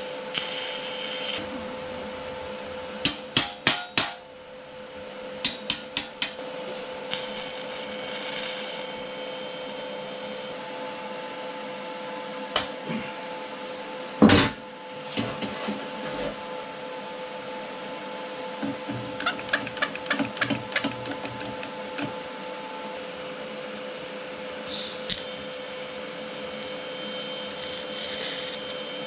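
Short bursts of quick hammer strikes in a workshop, three or four at a time, with one heavier knock about halfway through and a longer run of about nine rapid taps later on, all over a steady machine hum.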